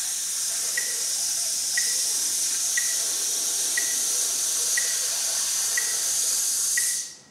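A man's sustained sizzle: air pushed out hard through the teeth as a steady, even 'tss' hiss, held for eight counts of a brass breathing exercise that trains a consistent air stream against resistance, cutting off about seven seconds in. A light tick sounds once a second underneath, keeping the beat.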